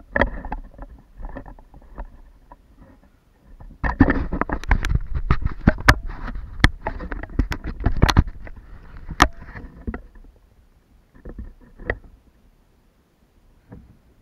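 Irregular splashing and sharp knocks at the side of a kayak as a hooked barracuda thrashes at the surface. There is a short burst at the start and a longer, busier stretch in the middle, then a few single knocks.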